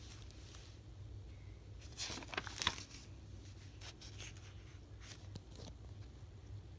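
Pages of a spiral-bound sketchbook being handled and turned, with a short paper rustle about two seconds in and a few light clicks after, over a low steady hum.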